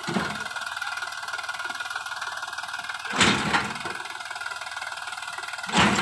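Sonalika DI 47 RX tractor's diesel engine running steadily, with short louder surges at the start, about three seconds in and near the end.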